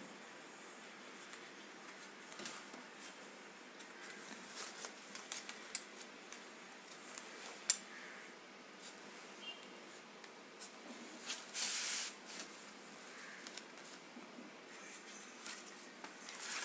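Faint paper-pattern work: a marker scratching on stiff paper and the paper sheet rustling as it is handled, with scattered light taps, a sharp click about eight seconds in and a longer rustle around twelve seconds.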